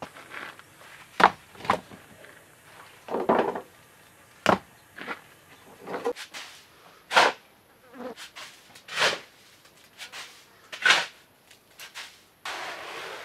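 Rough stones being set by hand into a cinder-block enclosure, giving a separate knock of stone on stone every second or two. Near the end a steady scraping rush begins as a shovel works loose earth.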